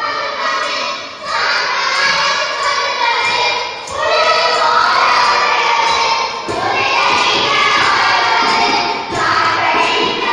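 A song with voices singing over instrumental music, in phrases of two to three seconds each.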